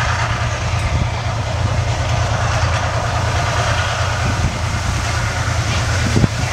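A military vehicle's engine running as it drives across the arena, heard as a steady low rumble. Wind buffets the microphone, and a short knock comes near the end.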